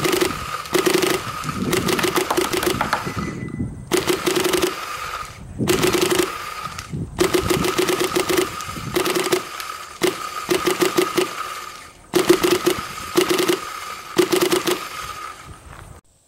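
Adrenalin Angel LCD electronic paintball marker firing several long rapid strings of shots, with brief pauses between strings and a steady whine running under each string.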